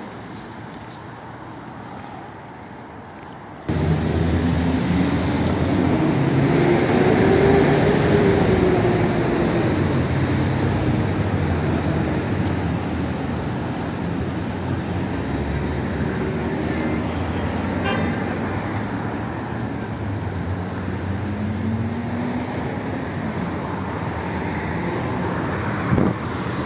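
City road traffic at a busy intersection: cars driving past, engines rising and falling in pitch as they pull away and pass. It starts quieter and turns abruptly louder about four seconds in. A short knock comes near the end.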